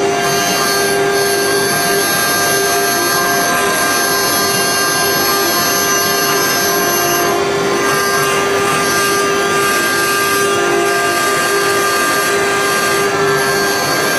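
Spindle of a 3030 mini CNC router engraving a relief into a metal disc: a steady whine of several held tones over rough cutting noise.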